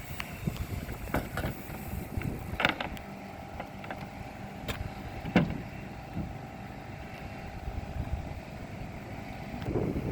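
Scattered sharp knocks and clicks over a steady low rumble, with the loudest knock about five seconds in.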